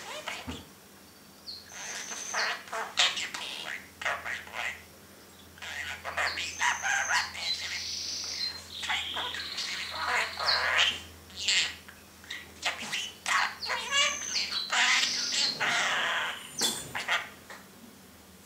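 Budgerigar chattering and warbling: quick runs of squawks, clicks and clear high whistles in several bursts, with short pauses between them.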